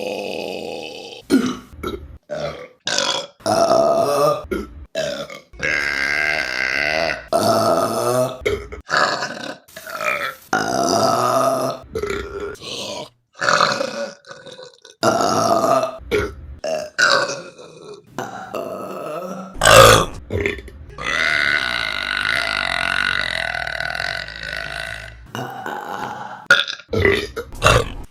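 Women burping: a rapid string of separate burps cut one after another. Most are short, a few are drawn out, and the longest runs about four seconds a little past the middle, just after the loudest, shortest one.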